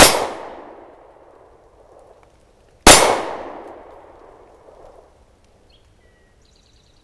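Two 9mm pistol shots from a Glock 26 Gen 3, one right at the start and one about three seconds in, each trailing off in an echo that lasts about two seconds.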